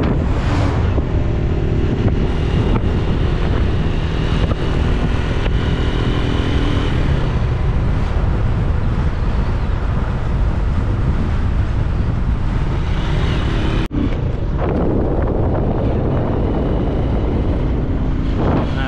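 Small motorcycle running at road speed under a rider and passenger, with wind buffeting the microphone. The sound breaks off for an instant a little past two-thirds of the way through.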